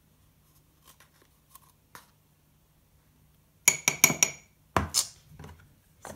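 A metal measuring spoon tapped against the rim of a ceramic mug: a quick run of ringing clinks about four seconds in, followed by two duller knocks. A few faint clicks come before.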